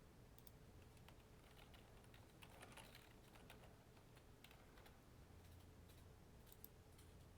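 Faint typing on a computer keyboard, scattered key clicks over quiet room tone.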